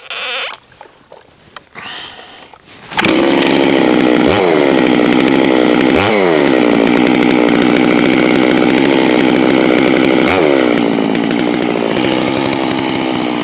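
NEO-TEC NS892 92 cc two-stroke chainsaw being pull-started, catching about three seconds in and then running loud and steady. The revs rise and fall back three times as the throttle is blipped.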